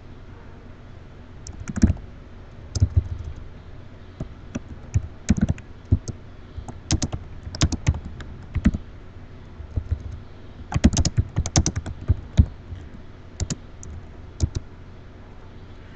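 Typing on a computer keyboard: irregular keystrokes in short runs, with pauses of a second or so between them.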